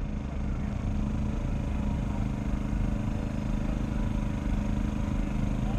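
Boat engine running steadily at a constant speed, a low hum with a steady drone.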